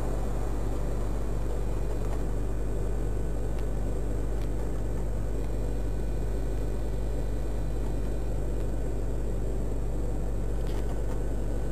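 Steady low electrical hum with a hiss over it, picked up by a security camera's microphone.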